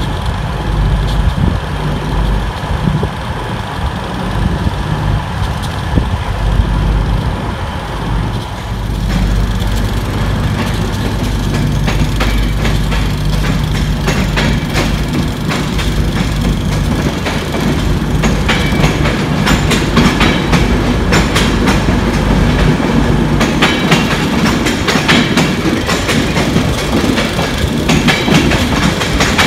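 Passenger train rolling through station trackwork, its wheels clacking over rail joints and points, with a steady low hum beneath. The clacking grows louder and more frequent from about ten seconds in.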